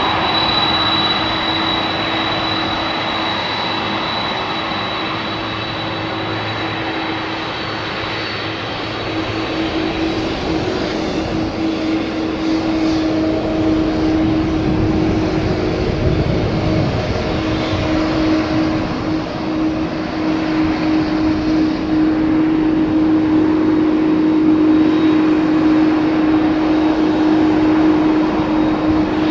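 Jet airliner on final approach passing low overhead: continuous loud engine noise with a steady high whine and a low hum, swelling a little about ten seconds in.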